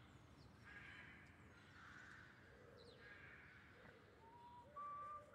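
Faint bird calls. About four seconds in, a few clear whistled notes begin, each held and stepping up in pitch.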